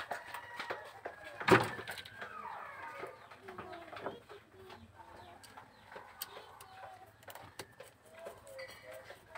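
Birds calling in the background, many short chirps throughout, with small clicks and one sharp knock about a second and a half in from handling an ignition switch and its wires.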